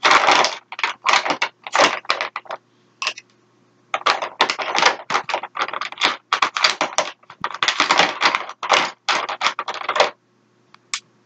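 Lipstick and lip gloss tubes clattering and clicking against each other as a hand rummages through a storage bin. The clatter comes in quick, irregular bursts, with short lulls about three seconds in and near the end.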